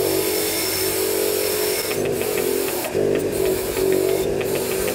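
Wire brush wheel on a small bench grinder scrubbing rust off a steel open-end spanner: the motor's steady hum under a scratchy hiss, which drops out briefly about three seconds in and again near four and a half seconds as the spanner comes off the wheel.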